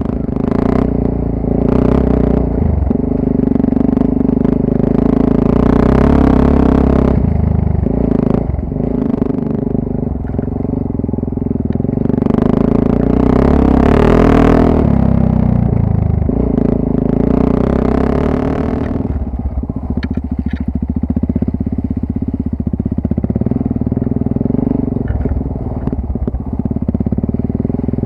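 Off-road motorcycle engine running under load on a rough dirt trail, heard from on board. The revs rise and ease off several times, with the biggest pulls about five, thirteen and eighteen seconds in.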